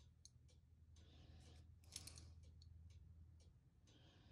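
Faint scratchy strokes of a hand sanding block rubbed over a die-cast metal toy body, with a few small clicks from handling the casting, over a low steady hum that stops about three and a half seconds in.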